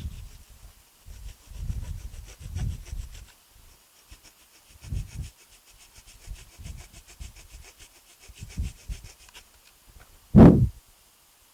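A blade scraping away at a small protruding piece of plastic on a handlebar control, in fine repeated shaving strokes, with dull low bumps from handling and a louder bump near the end.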